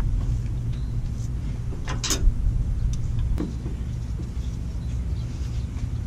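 Steady low rumble under a few sharp metal clicks from hand work on a turbo wastegate, as its cover is lined up over the spring. The clearest click comes about two seconds in and another about three and a half seconds in.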